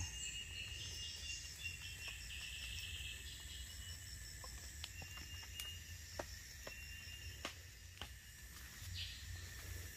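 Tropical forest insects chirring steadily in thin, high tones, one of them pulsing rapidly, over a low steady rumble, with a few scattered faint clicks.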